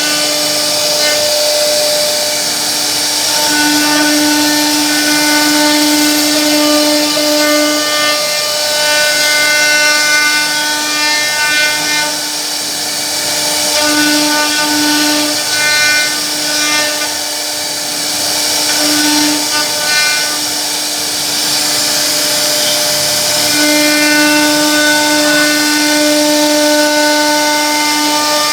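CNC router spindle whining at a steady pitch as its bit carves a wooden board, with a hiss of cutting over it. The whine's overtones fade and come back every few seconds as the cut changes.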